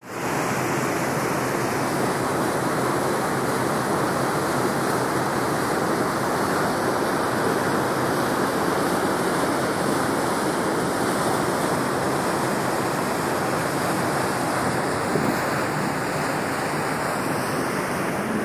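Steady rushing of a ferry's foaming wake churning along the hull, an even unbroken wash of water noise.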